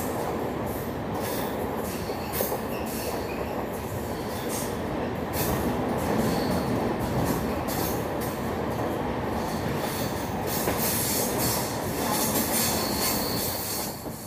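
Express train coaches running through a tunnel: a loud, steady roar of wheels on rail that echoes off the tunnel walls, with a high wheel screech coming and going on the curving track. The roar falls away near the end as the coach comes out of the tunnel.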